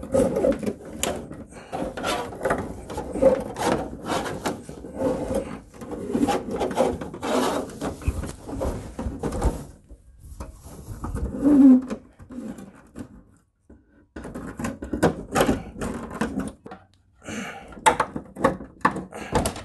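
Steel fish tape being pushed and worked through a wall-box opening into the cavity behind wood paneling, scraping and clicking against the paneling and foam insulation in irregular bursts, with a short pause about two-thirds through. The tape keeps snagging, which he takes for the tape hitting a stud.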